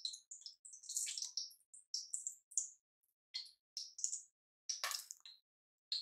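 Ghee melting into hot oil in a pressure cooker, giving faint, irregular crackling and spitting, with one fuller crackle about five seconds in.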